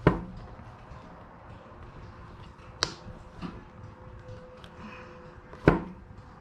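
Three sharp knocks, about three seconds apart, from hand tools and parts being handled during seal fitting on a hydraulic cylinder gland.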